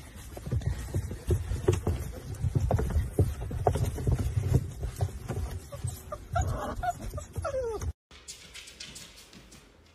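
A litter of pit bull-type puppies scrambling out of a plastic dog house: scuffling and thumps with many short, high-pitched squeaks and yelps, and a falling whine near the end. The sound cuts off abruptly about eight seconds in, leaving only faint sounds.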